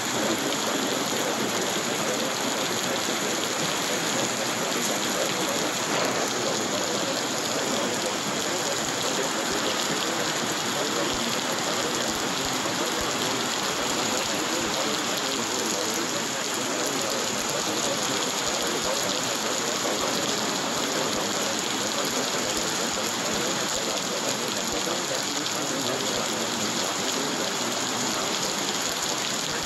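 Steady rain falling, an even unbroken hiss with no pauses or single drops standing out.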